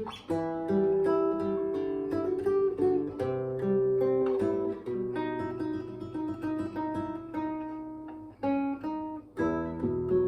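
Acoustic guitar playing an instrumental passage, with plucked notes and strummed chords over bass notes. It thins out briefly before a fuller chord comes in near the end.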